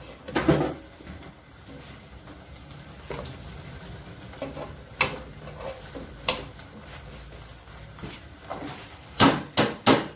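A plastic serving spoon knocking and scraping against a metal pot and a steel bowl as boiled yam pieces are moved: scattered clinks and thuds, then a quick run of sharp knocks near the end.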